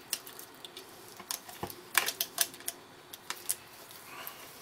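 Small socket on a T-bar driver clicking and tapping against the nuts and terminals on the back of an alternator as its connections are undone: a scatter of sharp, irregular clicks, loudest about two seconds in.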